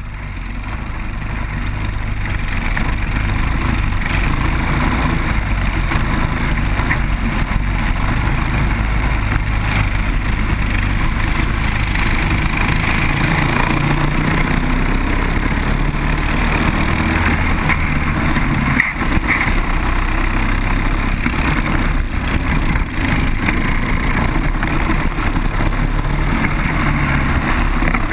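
Briggs & Stratton four-stroke kart engines running at racing speed, heard from onboard a kart in a close pack, mixed with a steady rushing noise. The sound swells up over the first couple of seconds, then holds steady.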